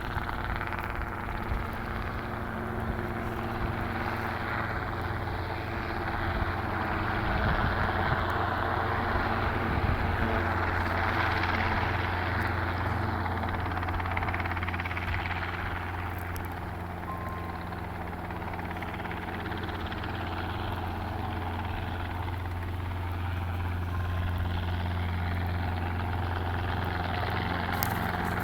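Private helicopter circling overhead: a steady drone of rotor and engine that grows louder about a third of the way in, fades a little past the middle, and builds again near the end as it comes round.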